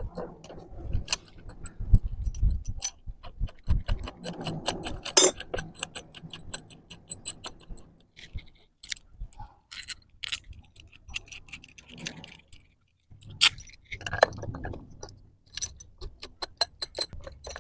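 Steel bolts, nuts and a spanner clinking and tapping against a flanged butterfly valve as it is bolted up: many quick irregular metal clicks with handling thuds in between.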